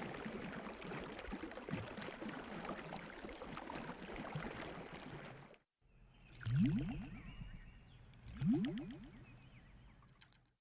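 Water gurgling and splashing with a dense crackle, then, after a short break, two loud bloops rising in pitch about two seconds apart.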